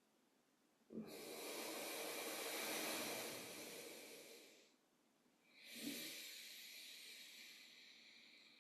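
Two long, slow breaths close to the microphone, airy and hissing, each a few seconds long with a short pause between.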